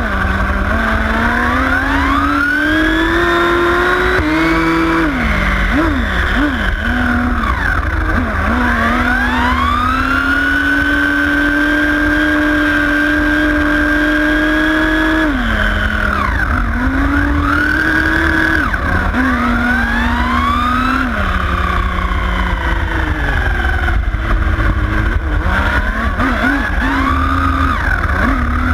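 Nitro RC car's small two-stroke glow-fuel engine, heard from a camera riding on the car, its pitch rising and falling again and again as the throttle opens and closes, with one long steady stretch at high revs near the middle. A constant low rumble runs underneath.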